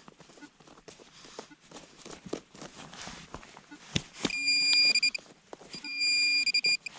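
Small clicks and scrapes of digging in wet soil, then about four seconds in a metal detector sounds a steady high beep that cuts in and out in two stretches, signalling metal in the hole.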